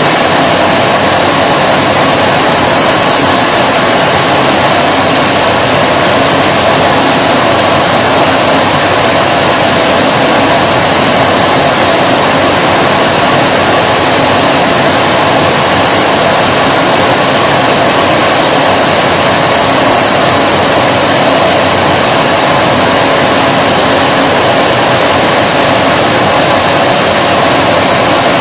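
Vacuum cleaner running continuously, a loud, steady whooshing hiss with a faint hum of the motor, unchanging throughout.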